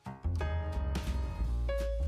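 Background music: keyboard chords with a bass line and drum hits that come in just after the start.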